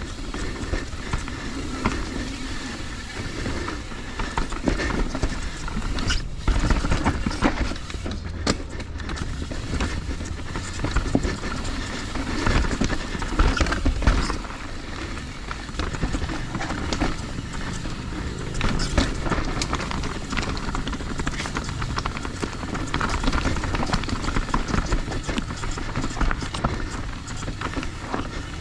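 Transition Spire mountain bike running fast down a rough downhill trail: a steady rush of tyres on dirt and rock, with the bike rattling and knocking over bumps and landings, several sharper knocks scattered through.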